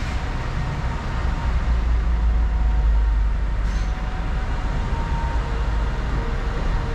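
City street traffic: a steady low rumble of vehicles, swelling louder for a couple of seconds about two seconds in.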